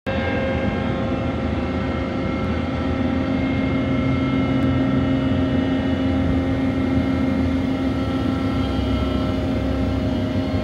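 Steady drone of cargo crane machinery working a clamshell grab in a grain hold, with a constant low hum and several higher steady tones.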